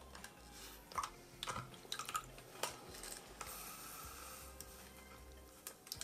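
Faint wet squishing and dripping as a soaked makeup sponge is pulled from a toy washing machine's drum and squeezed by hand, with a few light plastic clicks and taps.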